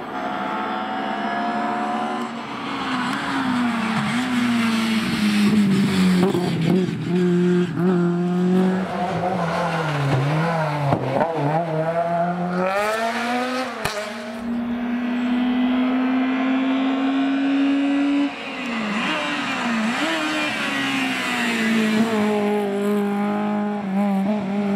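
Several rally cars at full effort on a tarmac special stage, one after another, their engines revving high and dropping back as they change gear and brake for the bends.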